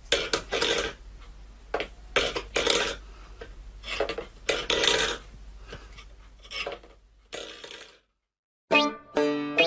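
Stainless steel pet bowl clattering and scraping on a wooden floor in about ten irregular knocks as a cat bats and pushes it with its paw. A burst of music starts near the end.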